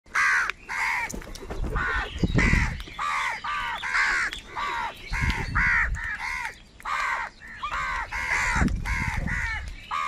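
A flock of house crows cawing over one another, harsh arched calls about twice a second, with a few brief low rumbles underneath.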